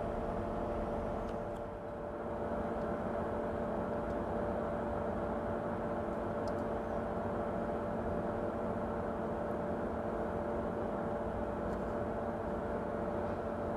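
A steady electric hum from a fan or motor running, with several steady tones in it and a few faint ticks.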